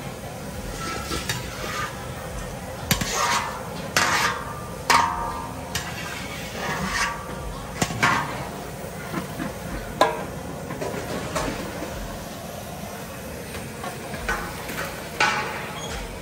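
A metal ladle stirring and scraping in a large metal wok, with sharp scrapes and knocks at irregular intervals over a steady frying sizzle.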